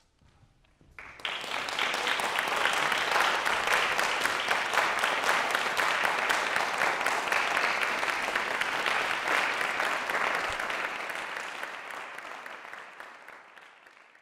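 Audience applauding: the clapping breaks out about a second in after a brief hush, holds steady, then dies away over the last few seconds.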